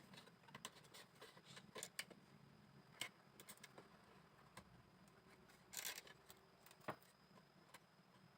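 Faint, irregular light clicks and taps of bamboo pieces being handled and worked by hand, with one brief scraping rustle about six seconds in.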